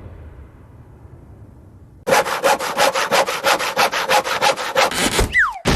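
Cartoon sawing sound effect: a fast run of rasping back-and-forth strokes, about six a second, like a hand saw going through wood, lasting about three seconds. It starts about two seconds in, after the dying tail of the previous effect, and ends in a short whistle that falls in pitch.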